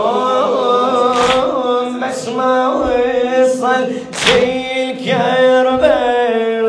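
A man chanting an Arabic mourning lament (latmiya) in long, drawn-out melismatic phrases, his pitch bending and turning within each held vowel. A steady low note is held beneath throughout.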